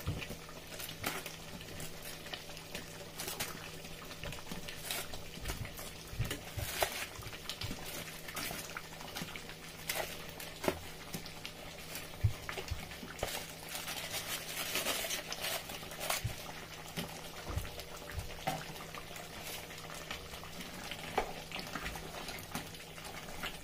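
Thick tomato fish stew simmering in a pot, bubbling and popping in scattered short clicks, with the soft sounds of pieces of fried fish being dropped in and a spatula stirring near the end. A steady low hum runs underneath.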